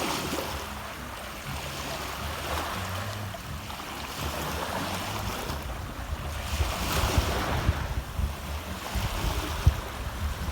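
Sea waves washing onto a sandy beach, the hiss swelling and fading every few seconds, with wind rumbling on the microphone.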